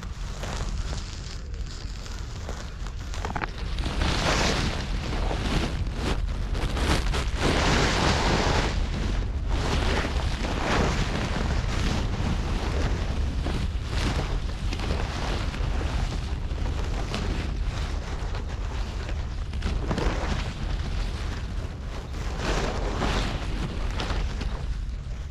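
Sea waves washing onto a rocky shore in swells every few seconds, over a steady low rumble of wind buffeting the microphone.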